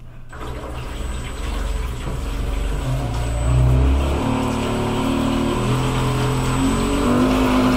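3D-printed RC jet boat's new electric motors spinning the jet pump impellers under throttle, starting about a third of a second in and getting louder. The motor hum steps up and down in pitch as the throttle changes, over the churning of water thrown out of the jet.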